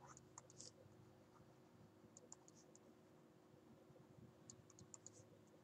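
Near silence with faint clusters of small sharp clicks: a stylus tapping and ticking on a pen tablet during handwriting, in three short bursts.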